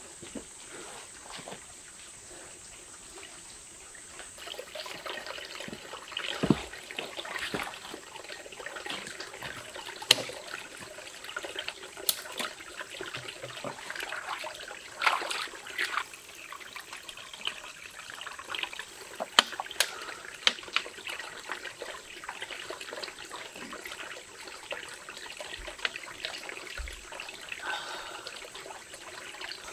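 Water trickling and splashing unevenly, broken by scattered sharp splashes or knocks.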